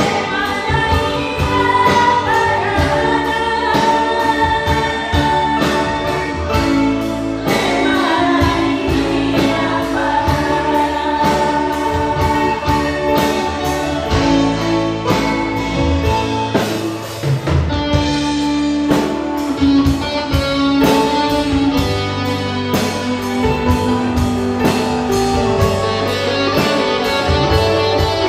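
Women singing a song together through microphones and a PA, backed by a live band with drum kit and electric keyboard playing a steady beat.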